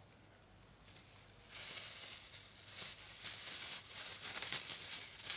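Clear plastic packaging being crumpled and crinkled by hand: an irregular crackling that starts about a second and a half in and keeps going.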